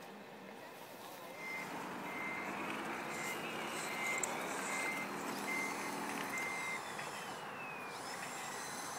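Reversing beeper from a scale RC construction model's sound module: about seven evenly spaced high beeps, over an engine-like hum played through the same small speaker. A falling whine comes near the end.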